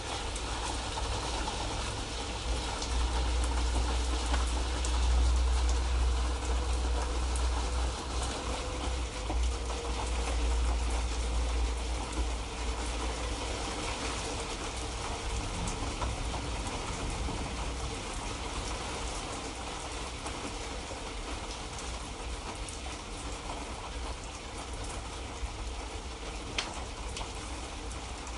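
Light rain falling steadily, a constant patter with many small drops ticking on surfaces, over a low rumble that is stronger in the first half.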